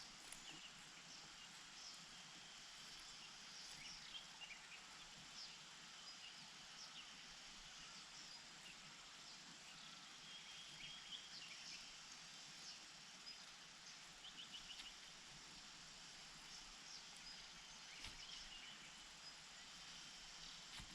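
Faint outdoor ambience with a steady hiss and short, scattered high bird chirps.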